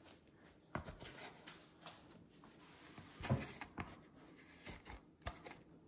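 Silicone spatula scraping and stirring sticky bread dough in a stainless-steel bowl: irregular scrapes and soft knocks against the metal, the loudest a little past halfway.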